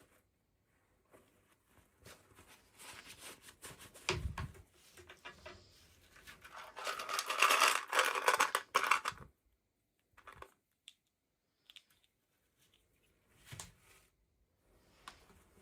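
Toy packaging being handled and opened by hand: scattered small clicks and scratches, a knock about 4 seconds in, and a stretch of tearing and rustling from about 6.5 to 9 seconds.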